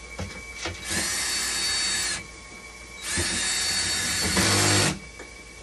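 Cordless drill/driver running in two bursts, about a second and then nearly two seconds long, driving screws into the front panel of a dialysis machine; a lower tone joins near the end of the second run. A few small clicks come before the first run.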